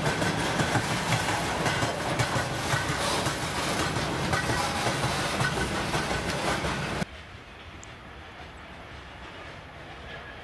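Railway wagons rolling past close by, their wheels clacking over the rail joints. About seven seconds in the sound drops abruptly to a quieter, more distant rumble of the train.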